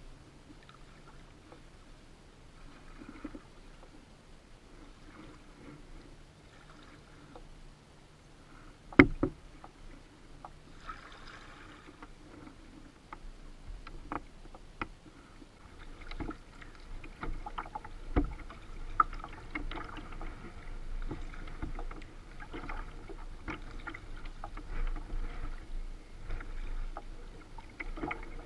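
Kayak being paddled on choppy water: paddle splashes, drips and water lapping at the hull, growing busier and louder in the second half. A sharp knock about nine seconds in is the loudest sound, with another about eighteen seconds in; a faint steady hum runs under the first ten seconds.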